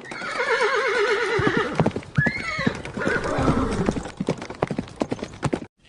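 A horse whinnying: a long neigh that wavers in pitch, then a shorter call that rises and falls. Hooves clip-clop irregularly through the rest of it.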